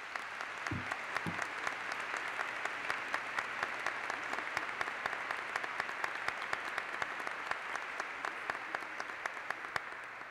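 A large audience applauding steadily, with two short low thumps about a second in.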